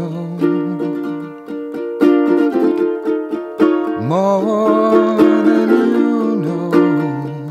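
Background music: a strummed string instrument with a voice singing held notes, one phrase sliding up into a long note about four seconds in.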